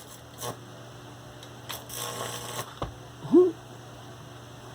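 Crackling and sizzling from the electrified screen of a homemade microwave-transformer rat trap as a rat is being electrocuted, with scattered clicks over a steady low hum. A short, loud rising vocal sound comes about three and a half seconds in.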